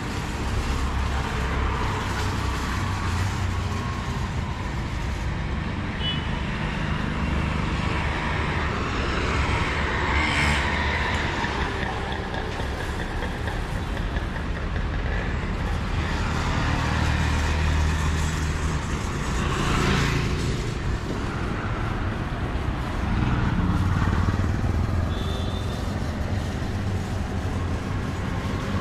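Road traffic on a wet street: a steady rumble of passing vehicles, with two louder pass-bys about ten and twenty seconds in, tyres swishing on the wet road.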